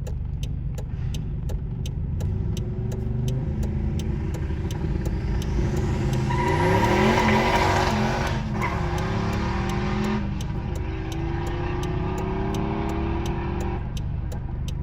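Car engine accelerating: steady low rumble with revs climbing, a brief break about halfway that fits a gear change, then climbing again.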